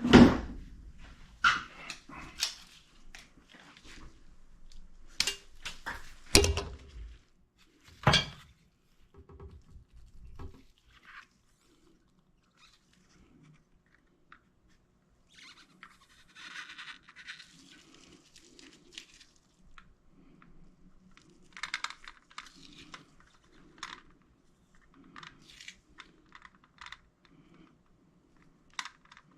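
Knocks, clicks and clatter of sink parts being handled during the installation, with several sharp knocks in the first eight seconds, then quieter scattered clicks and scraping.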